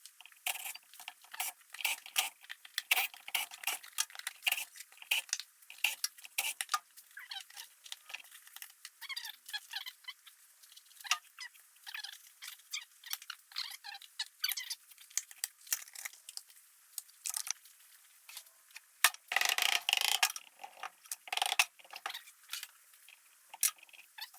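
Hand tools and steel bolts clicking and clinking against each other and the aluminium engine case as the bolts of a Can-Am Maverick 1000 engine's magneto side cover are taken out. The clicks come in quick irregular runs, with a louder, longer rattle about three-quarters of the way through.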